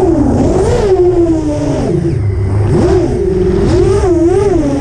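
FPV race quadcopter's motors and propellers whining, pitch sweeping up and down constantly with throttle. The whine drops low about two seconds in, then climbs sharply back, over a low rumble.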